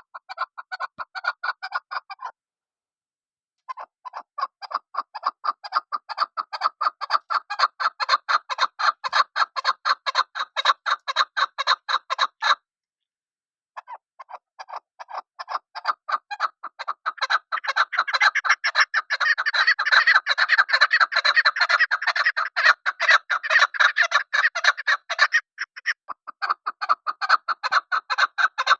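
Chukar partridge calling: a long run of rapid clucking notes, several a second, that grows louder and fuller towards the middle. The calling stops abruptly twice and starts again.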